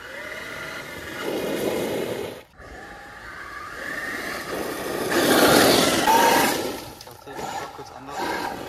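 Traxxas UDR RC truck driving fast on gravel: its electric motor whines up and down while the tyres crunch and spray gravel, loudest about halfway through as it passes close. The sound breaks off abruptly a few times.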